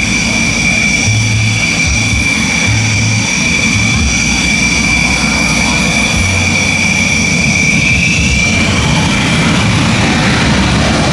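Jet engines of two Dassault Rafale fighters (Snecma M88 turbofans) running on the runway. A steady high-pitched whine sits over a low rumble; the whine climbs slightly in pitch and fades about eight seconds in.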